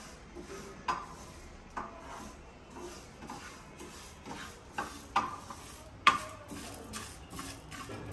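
Wooden spatula stirring and scraping whole coriander seeds as they dry-roast in a non-stick frying pan, the seeds rattling against the pan. Irregular taps and scrapes come about once a second, with the sharpest knock about six seconds in.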